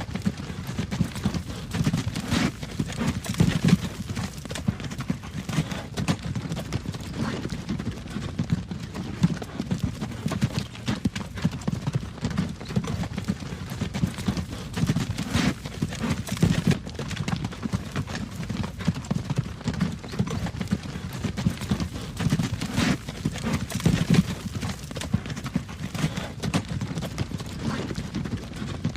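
Horse-drawn wagon on a road: steady clip-clop of hooves over the continuous low rumble of the wagon's wheels and frame.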